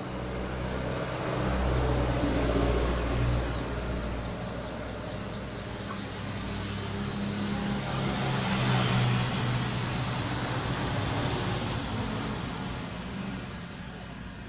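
A motor vehicle engine running with a low steady hum, growing louder and fading away twice.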